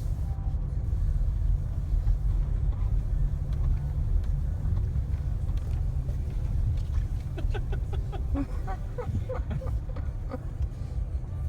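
Steady low rumble of a vehicle driving along a country road. A run of faint short chirps or squeaks comes in about two-thirds of the way through.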